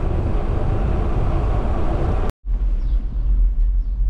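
Wind buffeting the microphone while riding a bicycle, a steady low rumbling noise. It cuts out for an instant a little past two seconds in and comes back deeper.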